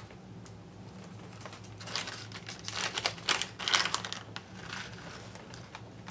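Small clear plastic bag crinkling as it is handled and opened, with small metal grommets clicking against each other as they are tipped out into a palm. A quick cluster of clicks and rustles, busiest in the middle.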